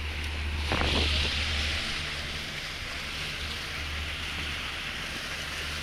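Sport-fishing boat under way at trolling speed: a steady low engine drone under the rush of water and wind, with a louder swash about a second in.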